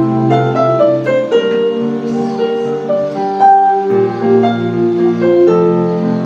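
Background music: a piano playing a melody over sustained chords.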